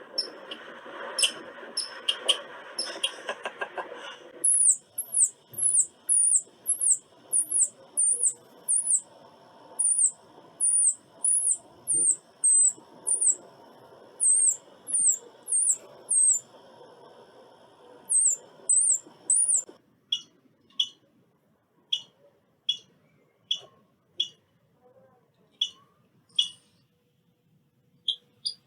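Squirrel giving a long series of high-pitched, hooked chirps, one to two a second, over a hissy background at first. From about two-thirds of the way in the chirps become shorter, lower and more spaced, about one a second.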